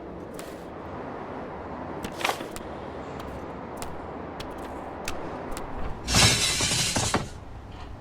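Film sound-effects track: a steady street-traffic hum with scattered light clicks, and a loud rushing noise burst lasting about a second near the end.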